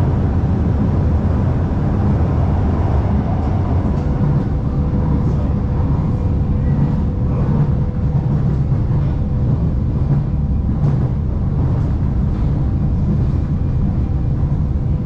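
Shanghai Metro Line 2 train running between stations, heard from inside the carriage: a steady low rumble with a faint steady whine and light ticks from the wheels on the track.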